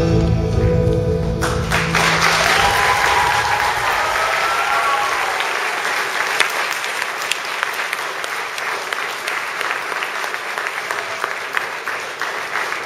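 The last notes of a song's backing music stop about a second and a half in, giving way to an audience applauding. The clapping is dense and steady and slowly eases off.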